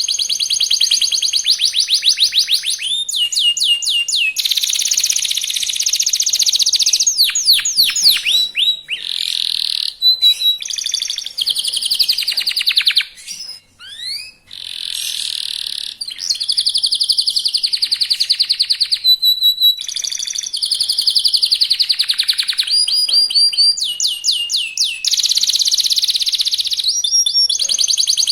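Young domestic canary singing a fast, loud song of long rolling trills and rapid chirps, with a brief break a little before the middle.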